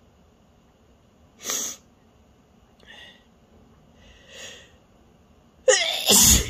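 A person sneezing: a short, sharp sneeze about a second and a half in, two fainter breaths, then a louder sneeze with voice in it near the end.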